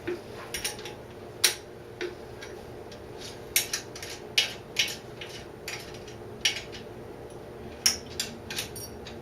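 Irregular metallic clicks and clinks of a 13 mm wrench working a nut off a motorcycle's rear torque link, over a faint steady hum.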